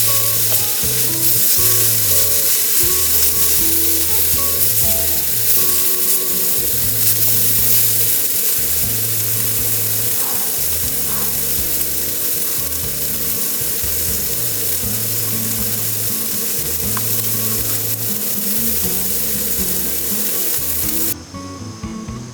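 Food sizzling hard in a hot frying pan, a dense steady hiss that cuts off suddenly near the end, over background music with a plodding bass line.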